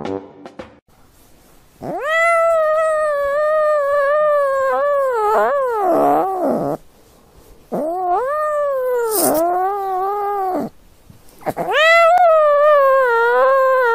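A cat yowling: three long, drawn-out calls of several seconds each, with a wavering pitch that dips and falls at the ends.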